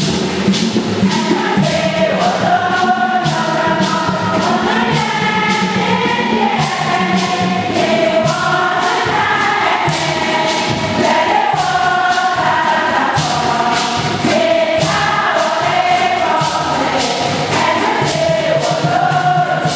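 A church congregation singing a hymn together, many voices at once, over a steady rhythmic percussion beat.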